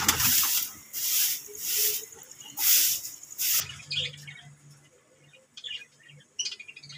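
Loud bursts of rustling noise about once a second, which stop about three and a half seconds in. Then budgerigars chirping softly with short, high chirps.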